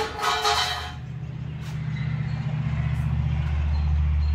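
A low, steady motor hum that comes in after about a second and grows gradually louder, after a short scraping squeak at the very start.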